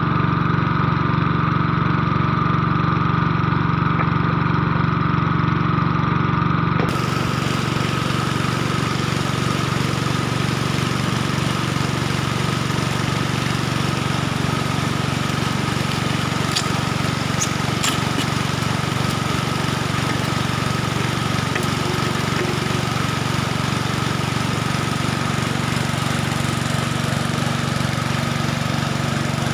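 Small petrol engine driving a suction dredge pump, running steadily at a constant speed. The sound shifts abruptly about a quarter of the way in, with more hiss afterwards.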